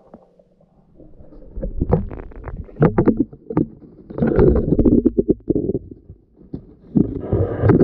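Muffled underwater sloshing and low rumbling as a pole is moved through the water beside the submerged camera, with many sharp knocks and clicks. It comes in three surges, starting about a second in.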